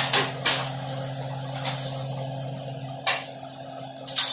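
A few short clatters and rustles as raw salmon pieces are laid into a pot of sliced eggplant and onion, the loudest pair near the end, over a steady low hum.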